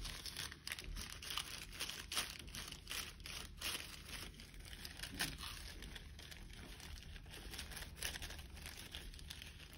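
Folded paper puppet crinkling and rustling in the hands as it is creased and handled, in quick irregular crackles that thin out after about halfway.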